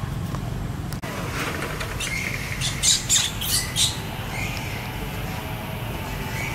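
Baby monkey squealing: four short, shrill cries in quick succession about three seconds in, with fainter high chirps before and after.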